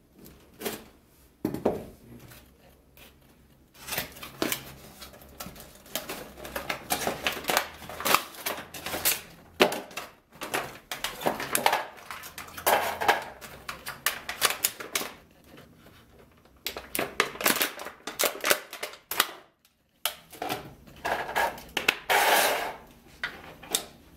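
Unboxing handling noise: a scissor blade slitting the box's seal, then a clear plastic packaging tray and cardboard crinkling and clicking in dense runs as a mini quadcopter and its transmitter are worked out, with brief pauses.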